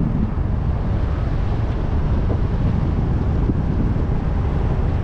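Steady low rumble of a car on the move: road and wind noise.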